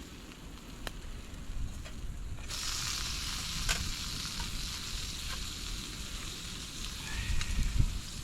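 Grilled meat sizzling on a hot plate, the sizzle growing louder about two and a half seconds in, with a few light clicks.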